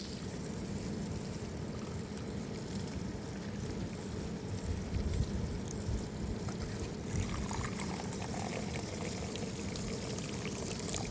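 Steady low rush of running water, with a few faint clicks.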